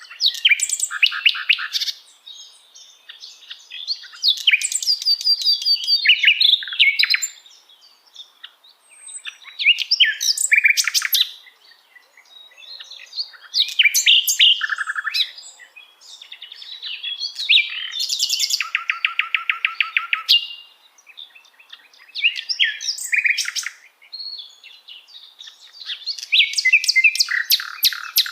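Common nightingale singing: varied phrases a few seconds long with short pauses between them, made of quick repeated notes and whistles. About two thirds of the way through comes one long, even series of rapid repeated notes.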